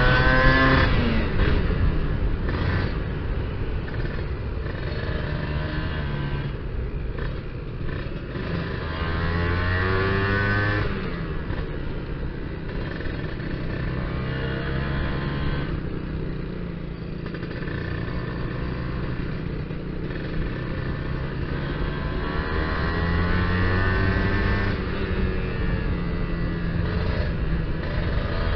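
Kawasaki Ninja R's two-stroke single-cylinder engine accelerating under way to overtake, its revs climbing and dropping back several times, loudest at the start and rising again about a third of the way in and near the end.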